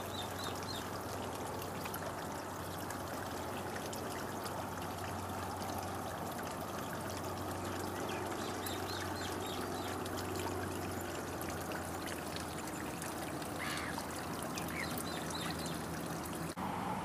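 Shallow water trickling over a tidal mudflat at low tide, a steady wash with no other sound standing out.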